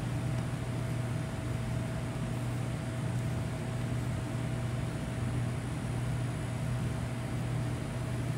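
Steady low machine hum of a ventilation fan, with a faint steady higher tone above it.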